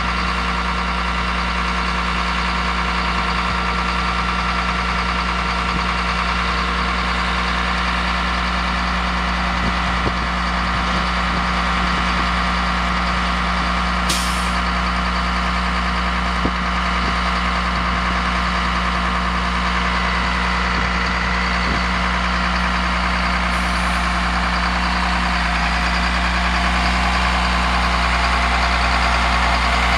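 Caterpillar 3126 turbo diesel engine of a Freightliner boom truck running steadily while its hydraulics bring the Altec aerial boom down and stow it. A single short click about halfway through, and the engine a little louder near the end.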